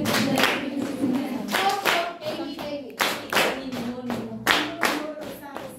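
A group of people singing together and clapping in a steady rhythm, the claps coming in pairs about every second and a half.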